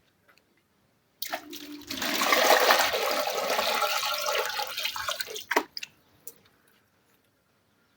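Water rushing for about four seconds, starting about a second in and cutting off, followed by two short knocks.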